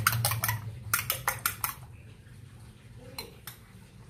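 Two eggs being beaten in a glass bowl, the utensil clicking rapidly against the glass at about five strokes a second, stopping about two seconds in; a couple of faint clinks follow.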